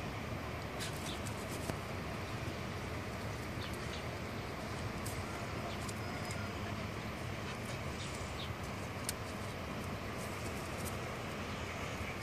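Steady outdoor background noise with a low rumble, broken by scattered faint clicks.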